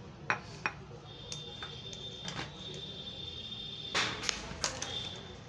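Sharp plastic clicks and knocks from handling a pendant bulb holder and its flex, with a thin steady high-pitched tone for a couple of seconds in the middle and a short rustle about four seconds in followed by two more clicks.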